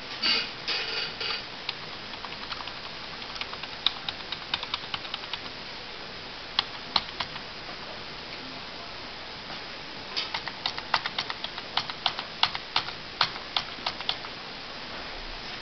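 Keys clicking on a computer keyboard: a scattered run of key presses, a pause, then a quicker run of about four or five presses a second near the end. A few duller knocks come at the start.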